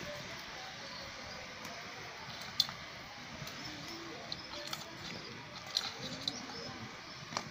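Curry simmering and sizzling in an aluminium pan over a wood fire, with a spatula stirring it. A few sharp clicks, the loudest about two and a half seconds in.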